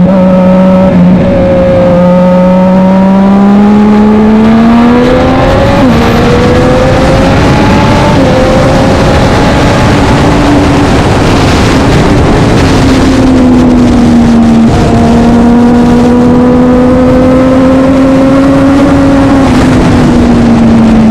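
Racing motorcycle engine running hard at speed. The revs climb for the first five seconds, break briefly at a gear change about six seconds in, fall back around thirteen seconds, and after another brief break near fifteen seconds hold a long, nearly steady pull.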